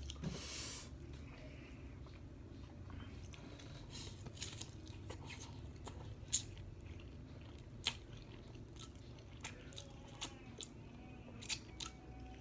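A person eating close to the microphone: chewing, with scattered sharp crunches and mouth clicks.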